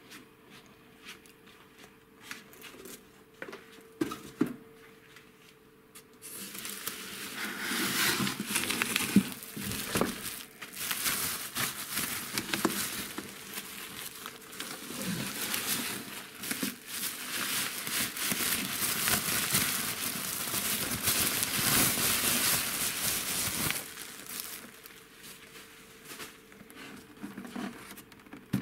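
Plastic bubble wrap crinkling and rustling as hands unwrap a boxed toy. It starts with a few soft handling clicks, becomes loud and continuous about six seconds in, and dies down to quieter handling about 24 seconds in.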